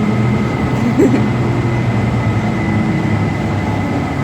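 Steady running rumble and hum inside a moving public-transit vehicle. A brief short sound comes about a second in.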